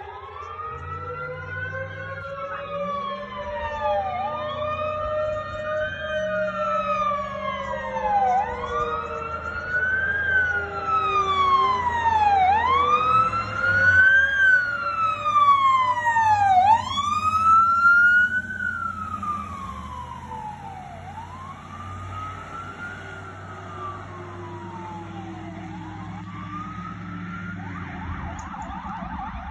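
Fire-rescue truck sirens wailing, rising and falling about every four seconds, with a second, slower-gliding siren tone beneath and a truck engine's rumble. The sirens grow loud midway as the trucks pass, then fade. Near the end a faster, rapidly pulsing siren tone starts.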